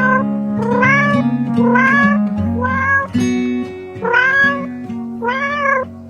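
A cat meowing six times, about one meow a second, each call rising then falling in pitch, over background music with plucked guitar.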